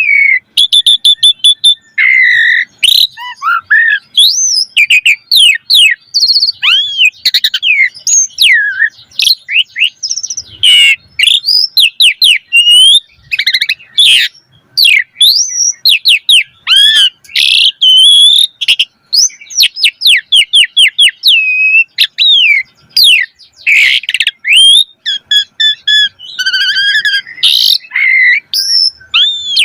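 Asian pied starling (jalak suren) singing continuously: a fast, varied string of whistles, rising and falling glides and sharp clicking chatter, with a rich repertoire of inserted phrases.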